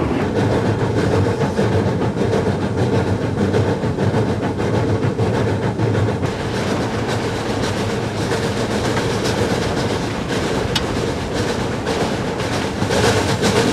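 Steam locomotive running sound effect: a dense, steady clatter and rattle of wheels and machinery.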